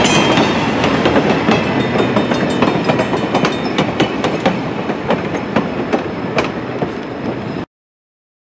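Steel wheels of passenger coaches clicking over the rail joints as the tail of the train passes and draws away, with a steady rumble that slowly fades. The sound cuts off abruptly near the end.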